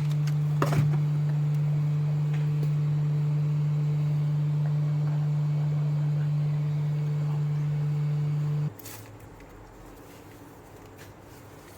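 A steady low electrical hum from mains-powered bench equipment, cutting off suddenly about three-quarters of the way through and leaving only faint hiss.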